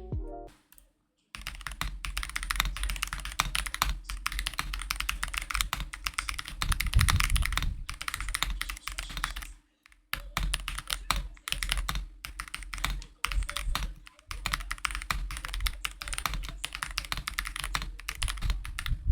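Typing on a mechanical keyboard fitted with KTT Matcha tactile switches: a fast, irregular run of keystroke clacks with a clean pop. It starts about a second in and breaks off briefly twice, about halfway through and again a few seconds later.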